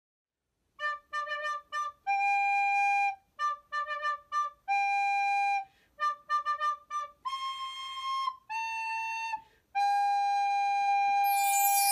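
Intro music: a solo melody on a flute-like instrument, runs of short quick notes alternating with long held notes, ending on a long held note. A bright chime shimmer comes in near the end.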